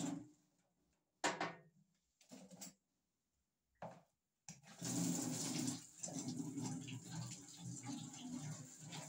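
Water from a wall tap splashing into a sink stops just after the start, followed by a few brief clatters of dishes being handled. About four and a half seconds in the tap is opened again and water pours and splashes steadily.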